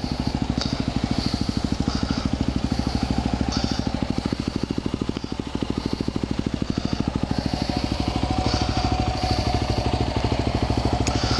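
2010 Yamaha WR250R's single-cylinder four-stroke engine running at a low, steady, even beat, with the bike moving off at low speed near the end.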